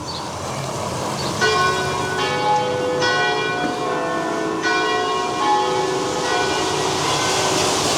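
Church bells ringing: a run of overlapping strikes starts about a second and a half in, each tone ringing on, over a steady hiss of rain.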